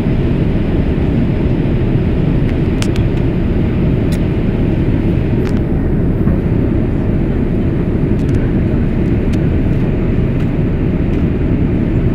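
Jet airliner cabin noise in flight: a steady, loud low rumble of the turbofan engines and airflow over the fuselage, with a few faint clicks.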